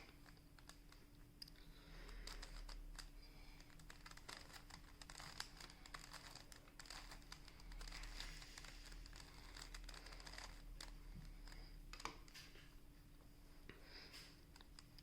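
Plastic Rubik's cube being turned face by face: a run of faint, quick clicks and scrapes, with a steady low hum underneath.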